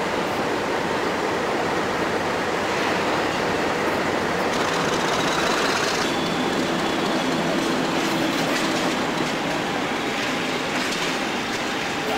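British Rail diesel locomotives on the move: a class 47 drawing away, then, after a cut about five seconds in, class 50 No. 50020 running with its English Electric V16 diesel as it moves off. A steady wash of engine and rail noise throughout.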